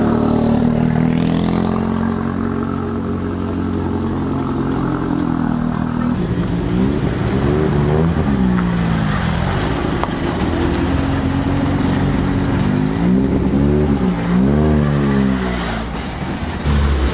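Car engine running, its revs rising and falling in several blips about halfway through and again a few seconds before the end.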